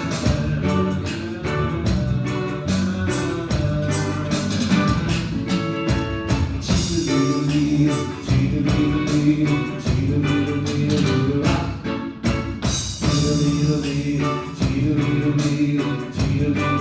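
A Christian pop song played by a band, with a steady beat, percussion and a voice singing in parts.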